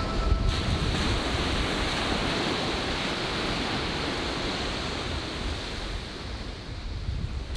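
Ocean surf breaking and washing onto a sandy beach: a steady rush of waves that eases a little near the end.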